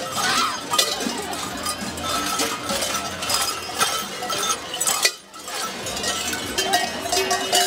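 Many large cowbells worn on the belts of Krampus runners clanging and jangling as they run past, dropping out briefly about five seconds in.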